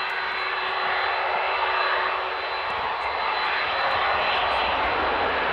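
Boeing 767-400's twin turbofan engines running at low taxi power: a steady jet whine with a thin high tone held throughout.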